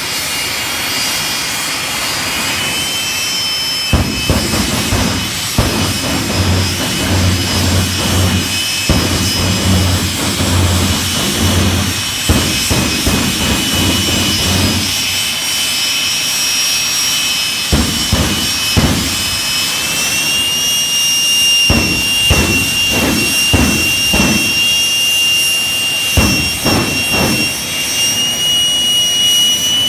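Jet dragster's turbine engine running while the car stands at the line: a steady high whine that steps up in pitch a few times, with a deep pulsing rumble through the middle and a run of short sharp bursts in the second half.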